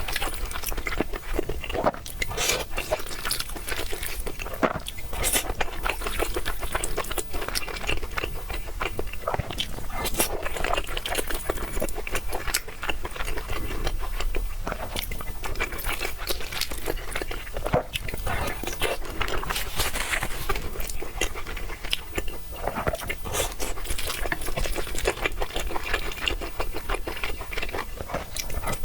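A person chewing and crunching food, a dense unbroken run of small crisp crunches, smacks and crackles.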